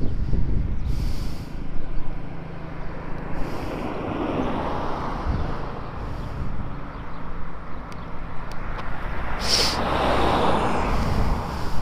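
Motor vehicle engine running with road and wind noise that swells twice, plus a sharp click near the end.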